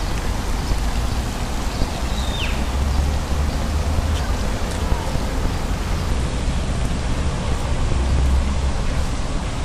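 Steady outdoor background noise: a dense, even hiss over a heavy low rumble, with a faint short falling chirp about two seconds in.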